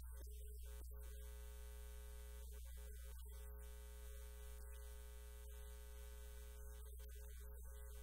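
Faint, steady electrical mains hum with sustained tones above it; no voice comes through.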